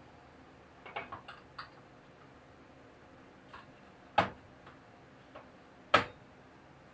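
A few light clicks about a second in, then two sharp knocks, about four and six seconds in, of things being handled and set down.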